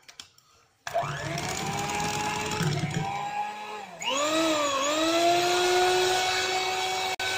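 Electric hand mixer starting up about a second in and beating the oil into whipped egg-and-sugar cake batter, its motor running with a steady whine. About four seconds in the whine jumps higher, dips briefly and settles at the higher pitch.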